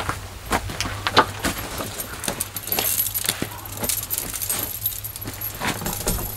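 Irregular clicks and knocks with light metallic jingling, busiest about halfway through.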